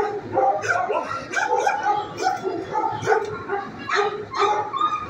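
Dogs in a shelter kennel barking and yelping: many short, overlapping barks in quick succession.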